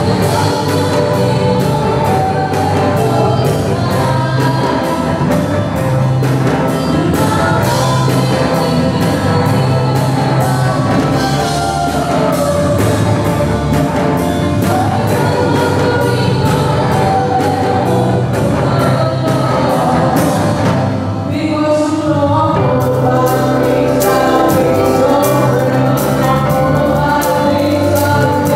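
Live band playing a song on electric guitars, bass guitar, keyboard and drum kit, with a woman singing through a microphone over it. The cymbals briefly drop out about three-quarters of the way through, then the full band comes back in.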